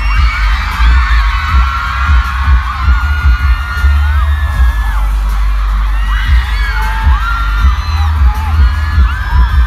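A concert crowd screaming in high, overlapping cries over loud music with a heavy, thumping bass from the venue's sound system.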